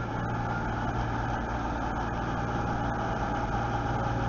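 Diesel engines of a Class 221 Super Voyager diesel-electric multiple unit running steadily at the platform, a constant low hum.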